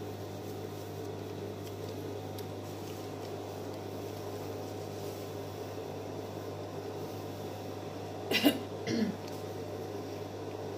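Steady low electric hum of an industrial lockstitch sewing machine's motor left running with no stitching. Two short coughs come near the end.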